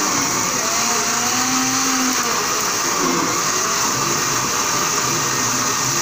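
Electric blender running steadily at full speed, blending mango and milk into juice.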